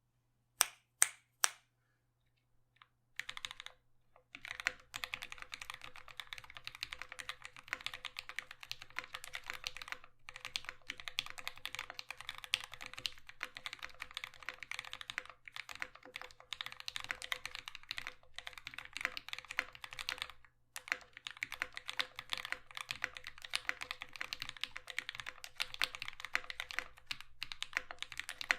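Steady fast typing on a Dolch.CR mechanical keyboard with lubed and filmed C³ Tangerine v2 linear switches, GMK ABS keycaps and a thick aluminum plate, the case dampened with drawer liner. Three sharp clacks in the first second and a half, then continuous typing from about three seconds in with a few short pauses.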